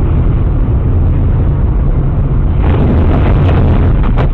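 Steady low rumble of a car's engine and tyres, heard from inside the cabin through a dashcam microphone. About two and a half seconds in, a cluster of sharp, irregular clicks and rattles joins it.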